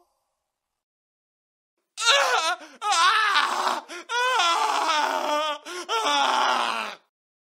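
A man screaming and wailing in distress, about four drawn-out outbursts with a wavering, shaking pitch, starting about two seconds in and stopping shortly before the end.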